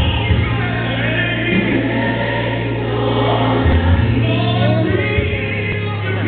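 Gospel song with a choir singing over sustained bass notes, the bass shifting to a new note about two-thirds of the way through.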